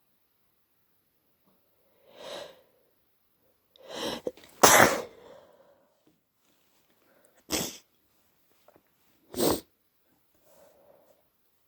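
A person sneezing three times, the sneezes deliberately induced to relieve a blocked, congested nose. The first sneeze is the loudest and follows a breathy build-up. Two shorter sneezes come about three and five seconds later, and softer breaths sound before and after.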